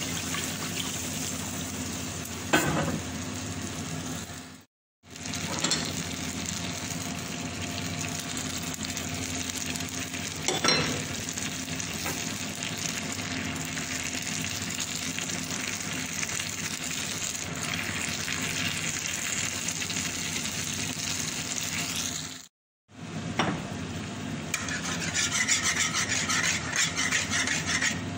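Liquid sizzling and bubbling in a hot black iron pan as it is poured in and stirred with a spatula, with a few knocks of the spatula against the pan. The sound breaks off twice for a moment, and near the end the spatula scrapes rhythmically through the thickening sauce.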